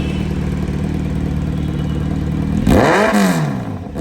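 Kawasaki motorcycle with an aftermarket exhaust idling steadily in neutral, then a single quick throttle blip near the end, the engine note rising sharply and falling back.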